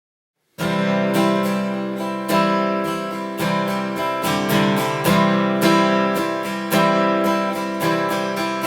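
Acoustic guitar strummed in a steady rhythm, starting suddenly about half a second in after silence: the instrumental intro to a song.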